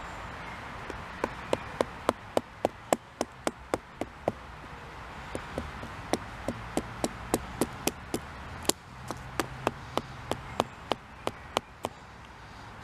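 Wooden baton striking the spine of a small ceramic-bladed knife over and over, batoning it down into a short stick to split it: sharp wooden knocks about three a second, with a short pause midway.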